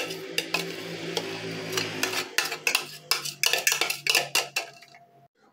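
A metal spoon scraping and knocking against the inside of a plastic food-chopper bowl as minced onion is scraped out, in a run of quick clicks, taps and scrapes over a low steady hum. It all stops suddenly near the end.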